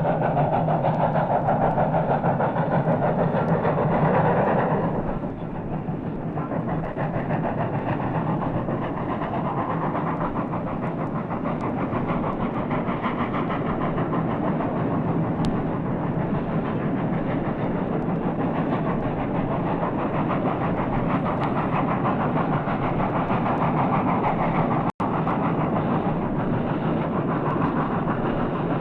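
An American steam locomotive running past on the rails, with continuous exhaust and wheel noise, louder for the first few seconds before easing off. It is an old, muffled recording with a momentary dropout a few seconds before the end.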